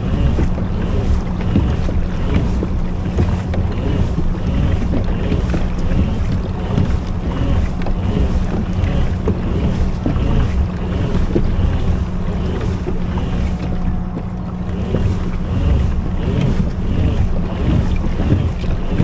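Kayak under way on open ocean water: wind buffets the microphone over water sounds and a steady low hum, with a faint even ticking about twice a second.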